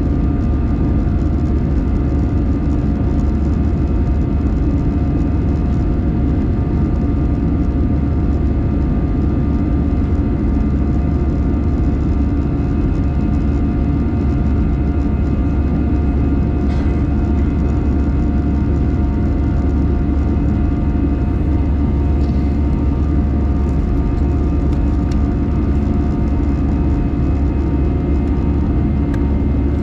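Airbus A319 cabin noise in flight after takeoff: a steady engine drone and air rush, a deep rumble with several steady whining tones over it.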